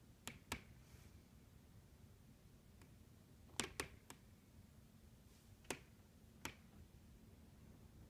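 Sharp pops from the house's wall and ceiling framing when the wind blows, about half a dozen at irregular intervals, some in quick pairs, in an otherwise quiet room. The cause is unknown to the owners.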